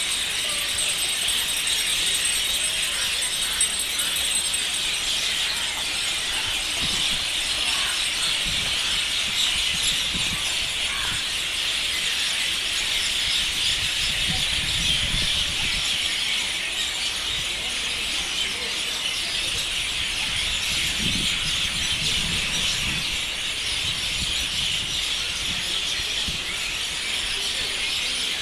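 A large flock of birds calling all at once: a dense, steady chorus of high chirps and chatter with no pause.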